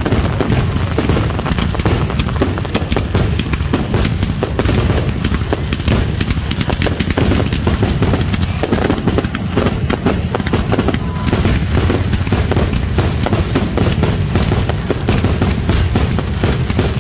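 Fireworks barrage: shells launching and bursting overhead in rapid, overlapping succession, a dense run of sharp cracks over deep booms with no pause.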